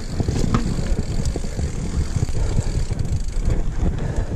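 Mountain bike riding over a rocky dirt trail, the bike rattling and knocking on the stones, with wind rumbling on the microphone.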